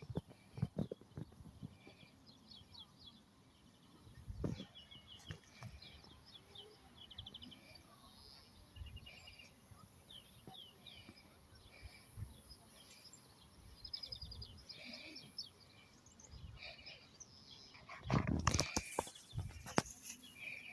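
Small birds chirping and trilling in short, high, repeated phrases, with scattered low knocks. A loud rustling burst comes near the end.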